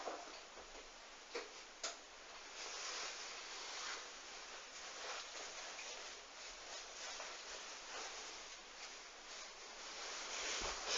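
Hoover washing machine pausing between drum rotations during a duvet wash: the motor whirr stops, leaving soft uneven water and laundry noise inside the drum. There are two small clicks about a second and a half and two seconds in, and the motor starts up again at the very end.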